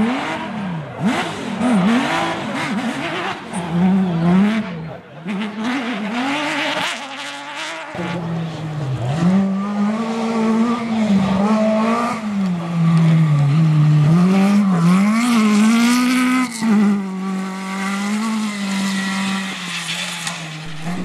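Off-road rally cars' engines revving hard, the pitch climbing and dropping quickly with throttle and gear changes. About eight seconds in, a second car takes over with a stronger, continuous engine note that rises and falls more slowly.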